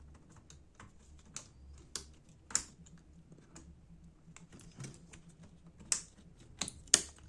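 Scattered light clicks and taps, a few sharper snaps among them, from a laptop keyboard being handled and pressed into place in its chassis.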